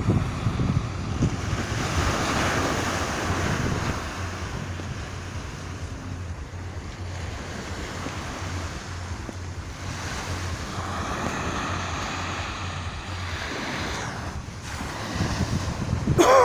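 Surf washing onto the beach in two slow swells, with wind buffeting the microphone.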